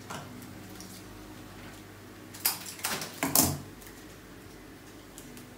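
A short cluster of clattering and rustling handling noises about halfway through, as flowers and tools are handled on a work table, over a steady low hum.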